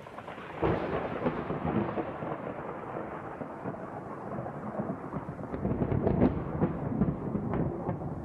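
Thunder rumbling, swelling up suddenly under a second in and carrying on.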